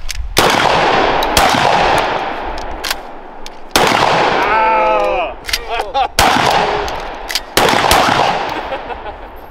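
Two shotguns firing at irregular intervals as their shooters load shells by hand between shots, about five loud blasts in all, each trailing off in a long echo. A short shout comes about halfway through.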